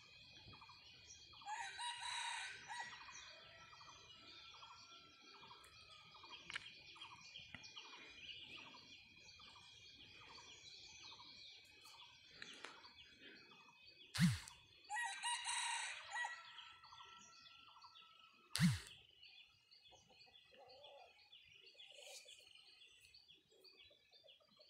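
Red-plumaged decoy jungle rooster crowing twice, each crow about a second and a half, some thirteen seconds apart, with faint repeated bird calls between. Two sharp knocks come between and after the second crow.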